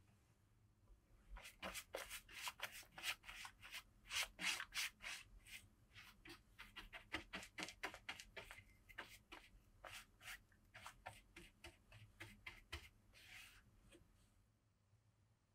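Faint, quick brushing strokes, a few a second, rubbing over a surface. They start about a second in and stop about two seconds before the end.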